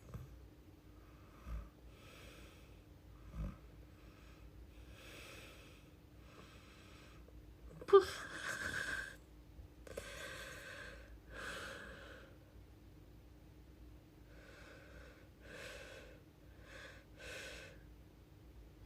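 A woman's breathing: a run of about a dozen audible breaths, each half a second to a second long. A sharp click about eight seconds in is the loudest sound, and there are two soft low thumps in the first four seconds.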